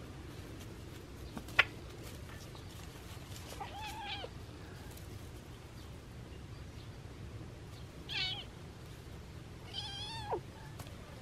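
Kittens play-fighting, with three short high-pitched mews at about four seconds, eight seconds and near the end; the last one is longer and drops in pitch as it ends. A single sharp click comes about one and a half seconds in.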